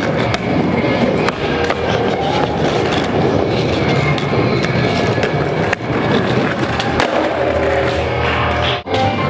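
Skateboard wheels rolling over smooth ramp and concrete surfaces, with a few sharp board clacks, over a music track.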